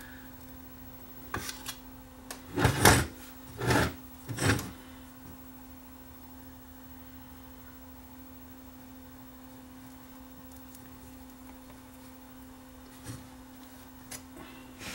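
Scrapes and knocks of tools working the metal tabs of a VCR power-supply case, as the solder is melted off and the tabs are bent back, over a steady low hum. The loudest scrape comes about three seconds in, with a few fainter knocks near the end.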